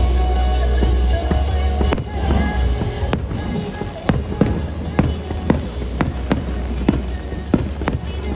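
Aerial firework shells bursting overhead in quick succession, sharp bangs about two a second from roughly two seconds in, with music playing underneath.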